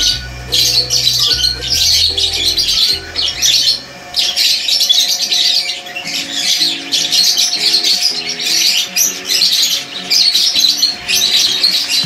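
Small parrots chattering and squawking in quick, shrill clusters of calls, over background music whose low bass notes fade out about four seconds in.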